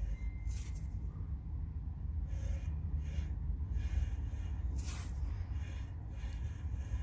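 A person breathing close to the microphone in soft, irregular puffs, over a steady low rumble, with two sharp clicks, one about half a second in and one about five seconds in.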